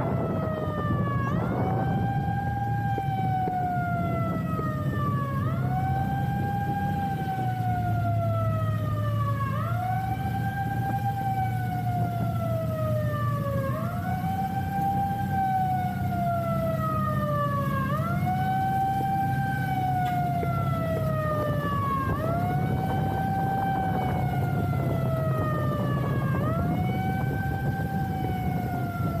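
Iftar siren signalling the breaking of the Ramadan fast: a wailing tone that jumps up quickly and then slides slowly down, repeating about every four seconds, over a steady low rumble.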